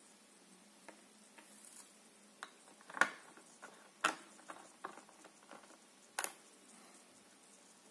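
Small plastic clicks and taps from hands handling a screen-protector alignment tray and adhesive bottle, with three sharper clicks about three, four and six seconds in.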